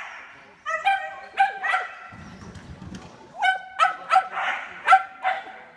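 A dog barking in rapid, high-pitched yips: one quick string of barks, a pause of about a second and a half, then another string.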